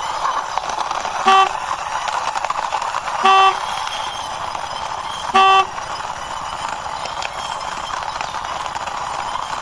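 A toy sport motorbike pushed along by hand with a steady whirring rolling noise, and three short horn toots about two seconds apart.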